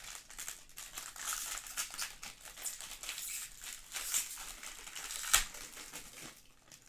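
Silver foil trading-card pack being torn open and crinkled in the hands: a continuous crackling of foil wrapper, with one sharp snap a little past five seconds in, the loudest moment.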